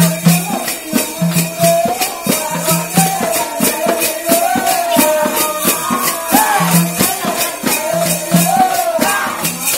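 Telugu folk song: a wavering sung melody over a hand-held frame drum and a shaken rattle or jingles that keep a steady beat of about three strokes a second. The music drops away right at the end.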